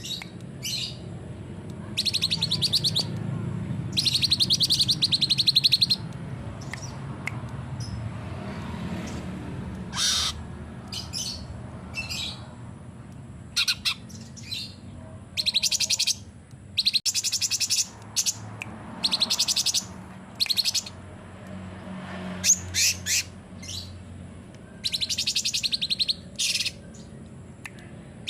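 Cucak cungkok bulbul singing in repeated bursts of fast, high trills about a second long, with short sharp notes between the bursts, over a low steady hum.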